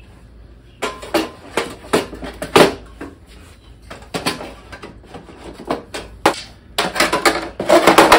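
Coleman portable butane camp stoves and kitchenware being set down into a wooden drawer: a run of clunks and clatters of metal and plastic on wood, starting about a second in, with some of the loudest knocks near the end.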